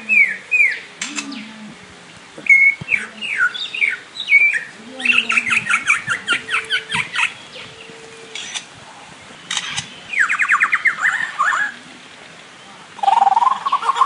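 Lyrebird calling: several quick runs of rapid, downward-sweeping whistled notes with short pauses between them, a few sharp clicks, and a lower run of rising notes starting near the end.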